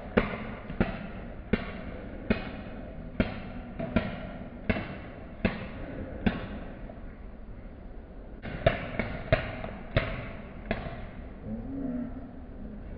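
Paintball markers firing: a steady run of single sharp pops, about one every three-quarters of a second, then after a short pause a quicker burst of about six more.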